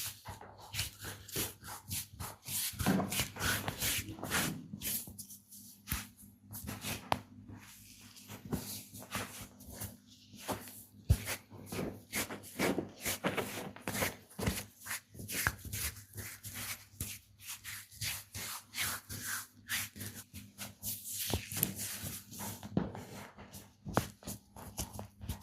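Massage hands working over bare skin: irregular rubbing and slapping strokes, with one sharp snap about eleven seconds in. A steady low hum runs underneath.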